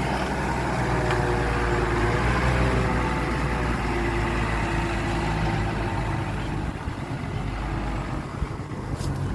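Heavy dump truck's diesel engine running steadily at low revs.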